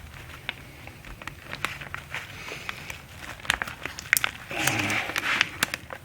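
Small irregular clicks and scrapes of a fine screwdriver tip prying at the tiny plastic locking tab of a turn signal switch wiring connector.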